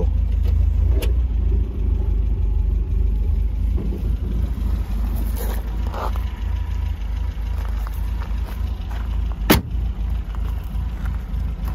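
A 1969 MGB's 1.8-litre, five-bearing four-cylinder engine with twin SU carburettors idling steadily, just started. A single sharp knock stands out about nine and a half seconds in.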